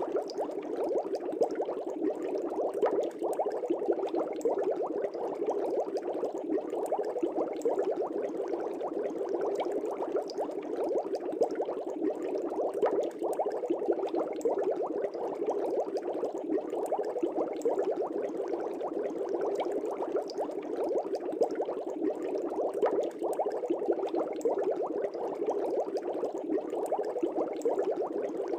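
Aquarium water bubbling steadily as streams of air bubbles rise and break: a continuous, dense patter of small pops and gurgles with no pauses.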